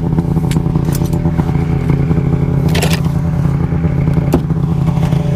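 Arctic Cat snowmobile engine running at a steady speed while riding. A few short knocks and a brief scrape, about three seconds in, come from the towed gear sled.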